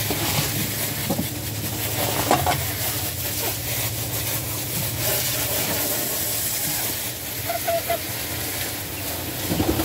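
Garden hose spraying water in a steady hiss as the chicken coop is rinsed out.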